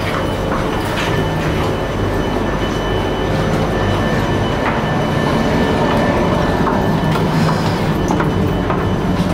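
Alstom Metropolis C751A metro train running, with a steady rumble of wheels on rail, a few faint steady tones and scattered light clicks.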